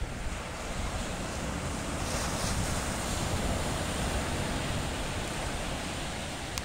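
Sea surf washing in, swelling about two seconds in, with wind buffeting the microphone.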